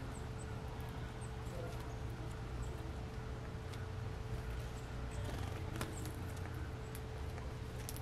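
Birds feeding on a platform feeder, pecking and cracking sunflower seeds: scattered sharp taps and clicks, with a few faint, short, high chip notes. A steady low hum runs beneath.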